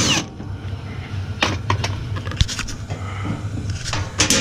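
A power drill's whine stops right at the start, as the last back-panel screw comes out. Then come a few light clicks and handling knocks over a low steady hum.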